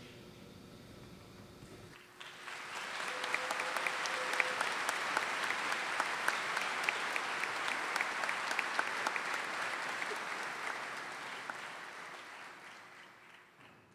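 Audience applause that breaks out about two seconds in after a faint end of music, holds steady with many sharp claps, and fades out near the end.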